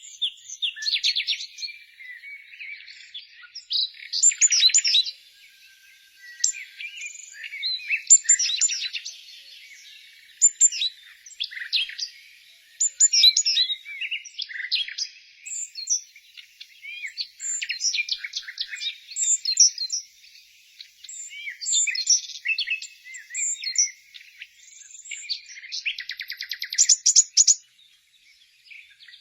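Birds chirping and singing, with many short high calls and several rapid trills overlapping in bursts.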